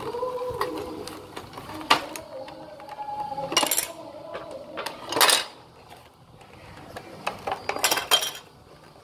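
Clear plastic blister packaging crinkling and rustling as small plastic dollhouse furniture pieces are pulled out of it, with light clicks and taps of the pieces on a glass table. Three short, louder crinkles stand out, about three and a half, five and eight seconds in.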